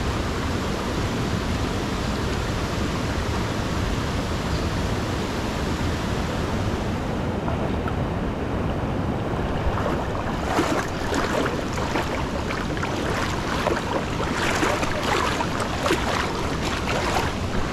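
Steady rush of a shallow river running over rocks, with irregular splashing from about ten seconds in as people wade through the water.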